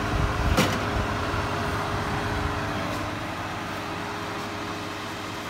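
Steady fan hum, with a sharp metal clank about half a second in as a baking tray is pulled off the oven's wire rack.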